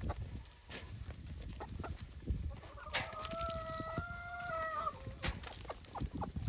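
Hens feeding and clucking, with scattered light ticks of pecking. About three seconds in, one chicken gives a single long drawn-out call lasting about two seconds.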